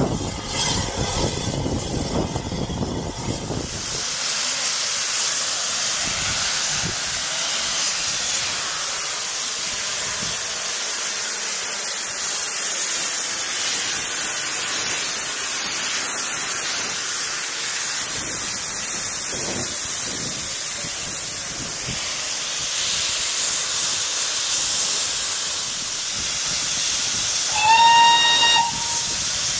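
Steam locomotive hissing loudly and steadily as it blows off steam, after a low rumble in the first few seconds. Near the end a steam whistle sounds once, about a second long, rising slightly as it starts.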